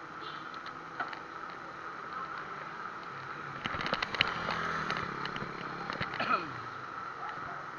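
Bicycle riding noise picked up by a cheap action camera mounted on the handlebar stem: a steady hiss of wind and road noise, with a spell of rattling clicks from the mount and bike starting about halfway through. A brief falling tone follows a little later.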